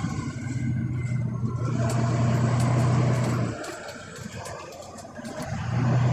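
A Volvo B9TL double-decker bus's six-cylinder diesel engine heard from inside the bus while it is under way, a steady low drone. The drone falls away for about two seconds past the midpoint, then pulls again near the end, with light clicks and rattles from the bodywork.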